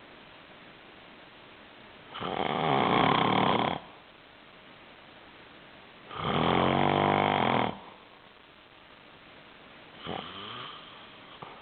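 A sleeping person snoring loudly: two long snores about four seconds apart, each lasting about a second and a half, then a shorter, fainter snore near the end.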